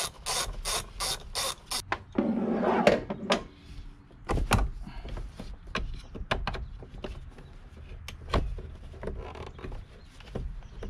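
Socket ratchet turning the negative battery terminal nut, clicking about three to four times a second, stopping about two seconds in. A rough rubbing scrape follows, then scattered knocks and clicks of handling.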